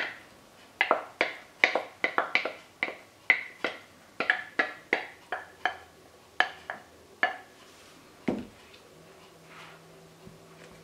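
Wooden spoon knocking against the rim and inside of a porcelain bowl as sautéed mushrooms are scraped out: a quick run of sharp clicks, about three a second, that stops about seven seconds in, followed by one duller thump.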